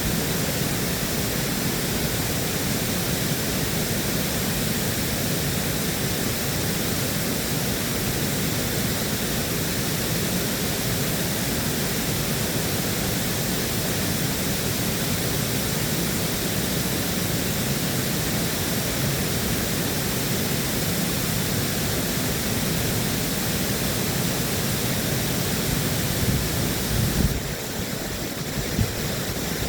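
Water rushing through a dam's spillway: a steady roar with no distinct tone in it. A few brief low thumps come near the end.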